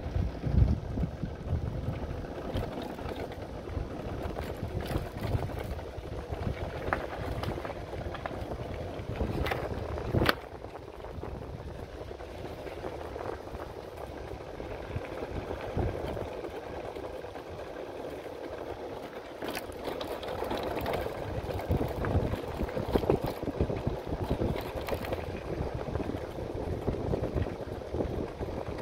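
A motorcycle ridden along a rough gravel track, its engine running, with scattered knocks and rattles from the bumpy surface; a sharp knock about ten seconds in, then a quieter stretch before the sound picks up again past the middle.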